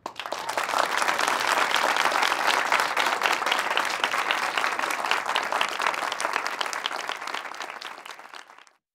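Studio audience applauding: dense, steady clapping that thins out toward the end and then cuts off abruptly.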